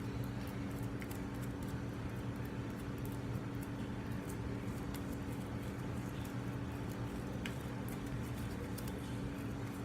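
Homemade glitter-glue and Tide slime being handled, with faint small sticky clicks and squelches over a steady low electrical hum.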